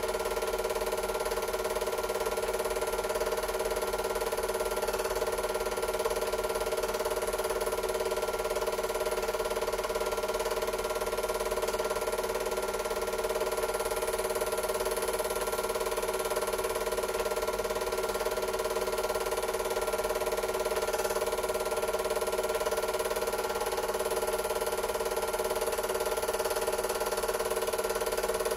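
Super 8 film projector running: a steady motor hum and whirr with a faint, rapid mechanical ticking from the film transport.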